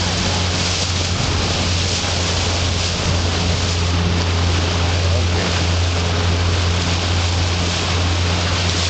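Boat motor running steadily, a constant low hum under a hiss of wind and sea.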